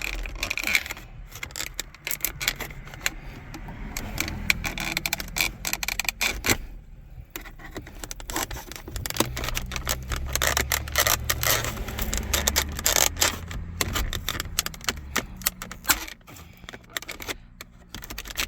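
Old plastic cup holder center console of a 2004–2014 Ford F-150 being pried up with a flathead screwdriver: rapid irregular clicks, snaps and scraping of plastic as the brittle piece is worked loose and cracks, over a low steady hum.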